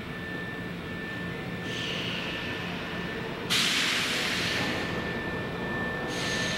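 Inside the car of a Nankai 9000 series electric train: a steady low hum with a thin high whine, broken by sudden bursts of hiss, the loudest starting about halfway through and lasting about a second, a softer one near the start and another near the end.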